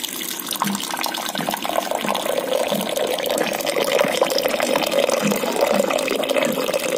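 Hot water pouring in a steady stream into a cup, filling it.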